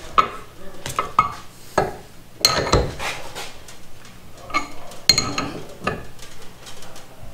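Steel sockets and an LS rocker arm with its brass trunnion clinking and clicking against each other and a bench vise as they are set between the jaws. Near the end, the steel vise handle is turned to press the brass trunnion in.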